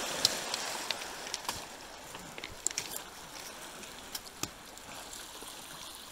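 Water washing steadily on a pebble shore, with scattered sharp clicks of pebbles underfoot.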